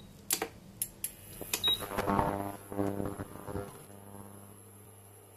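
Button clicks and short high beeps from an induction cooker's control panel as it is switched on, then a couple of seconds of a pitched, many-toned sound. After that, a steady low hum with a faint high whine from the running cooker.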